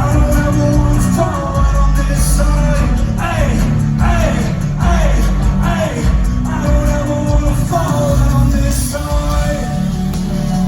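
Loud live rock band music with heavy bass and a sung melody, the vocal notes sliding downward again and again.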